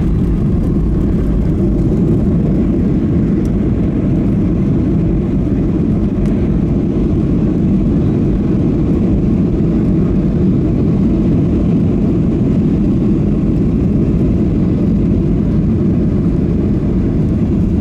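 Steady low rumble of a Ryanair Boeing 737's jet engines and wheels, heard inside the passenger cabin as the plane rolls along the ground.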